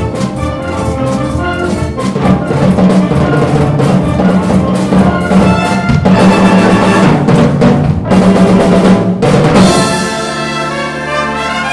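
Brass band playing live: brass over a steady drum beat. About ten seconds in, the drums stop and the band holds sustained chords.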